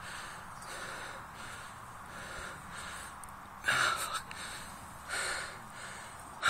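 Someone bouncing on a trampoline: a soft hiss with each bounce, about one every 0.6 seconds, with a louder burst a little past halfway and another near the end.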